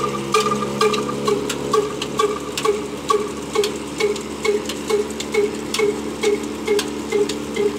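Large single-cylinder stationary diesel engine with a heavy flywheel running slowly and steadily, beating about twice a second, while it drives a flour mill by a flat belt.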